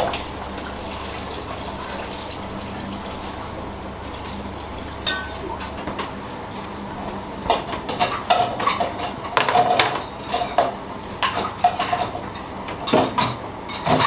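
Dishes and cutlery clinking and clattering, sparse at first and busier from about halfway through, over a steady background hiss.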